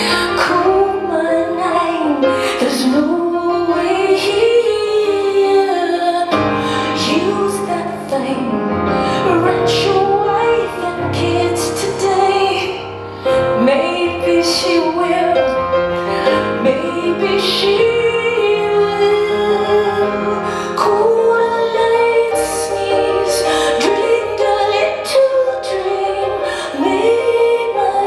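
Woman singing live, accompanying herself on a Bösendorfer grand piano.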